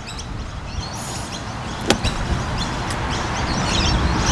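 A golf club strikes the sand under the ball in a greenside bunker shot: one sharp crack about two seconds in. A low rumble grows louder after it, with faint chirps in the background.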